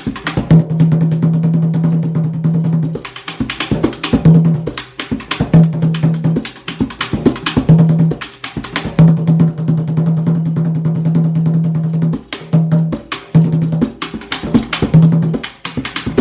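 Samba percussion played solo in a São Paulo-style groove: quick, dense strikes over a low steady tone that is held for long stretches and breaks off briefly now and then.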